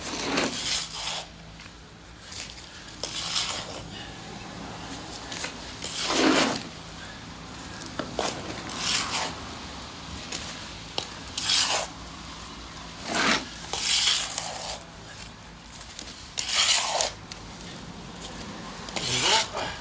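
Small garden trowel scraping and scooping packed mud and silt out of a drain that is full, in short scrapes every one to three seconds.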